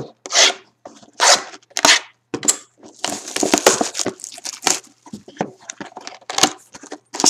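Plastic shrink wrap being torn and crinkled off a sealed trading-card box: several short rips, then a longer stretch of crinkling about three to five seconds in.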